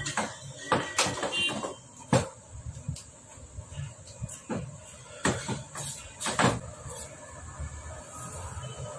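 Irregular sharp clicks and metallic knocks of hands and tools working on a Hero Splendor Plus motorcycle engine. There are several separate strikes a second or so apart, the loudest about two seconds in and past the six-second mark.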